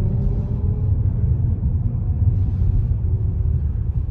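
Steady low rumble of road and engine noise heard from inside a moving car's cabin, with a faint steady tone above it.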